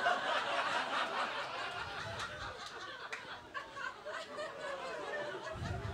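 Audience laughing, loudest in the first couple of seconds and then dying down.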